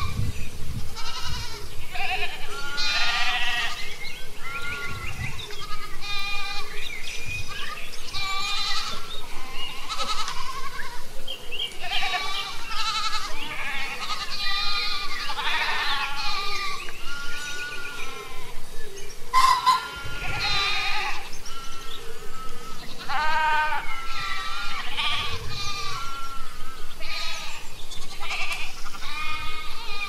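A mixed flock of goats and sheep bleating continually, many quavering calls overlapping one another with hardly a gap.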